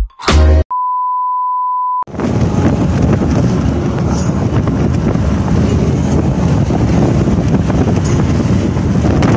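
A steady electronic beep tone lasting about a second, then from about two seconds in the steady rumble of road and wind noise inside a moving vehicle.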